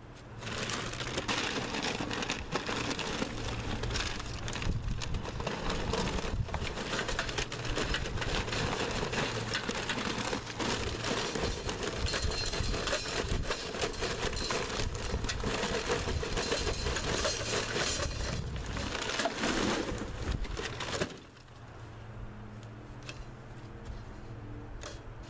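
Lump charcoal pouring from a paper bag into a metal chimney starter: a dense, continuous clatter of pieces with paper rustling, which stops near the end.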